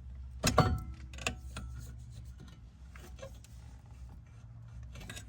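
A few scattered light clicks and clinks from tools and brake parts being handled, over a steady low hum.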